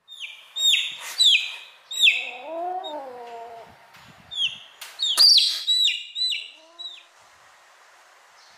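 A chick peeping over and over in short, loud, downward-falling peeps. Between the peeps a kitten gives one longer rising-and-falling meow a couple of seconds in, and a fainter mew shortly before the peeping stops.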